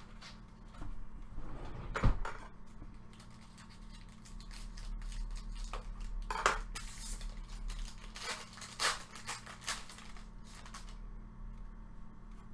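Foil sports card pack being cut open with scissors and peeled apart, with crinkling and crackling rustles. A sharp click about two seconds in is the loudest sound.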